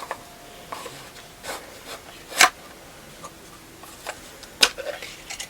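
Plastic container of facial pads being opened and handled: rubbing with scattered sharp clicks and crinkles, the loudest about two and a half and four and a half seconds in.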